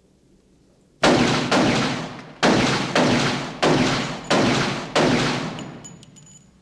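A Beretta 92F semi-automatic pistol firing about seven rapid shots, starting about a second in, each with a long echo off the walls of an indoor firing range.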